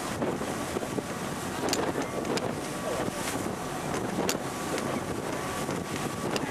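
Wind buffeting the microphone aboard a moving passenger ferry, over the steady drone of the ferry's engines and rushing water, with a few sharp pops.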